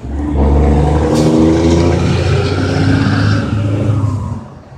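A motor vehicle engine runs loudly, starting abruptly, its pitch shifting up and down in steps, then fading away near the end.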